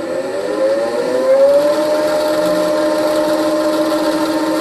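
Milling machine spindle starting up with a 1/8 inch end mill in it: a motor whine that rises in pitch, settles about one and a half seconds in, then runs at a steady speed.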